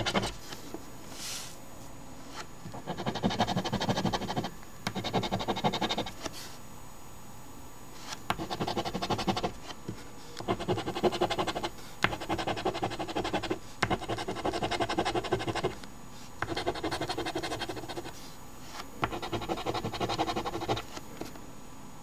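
A coin scraping the scratch-off coating from a paper instant lottery ticket, in about eight bursts of rapid back-and-forth strokes, each a second or two long, with short pauses between.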